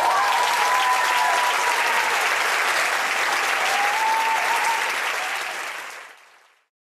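Theatre audience applauding, with a long high call rising over the clapping twice. The applause fades out near the end.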